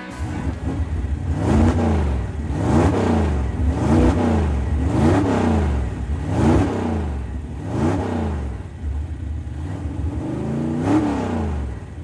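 Car engine revved over and over, roughly once a second, each rev rising and falling in pitch over a steady low drone.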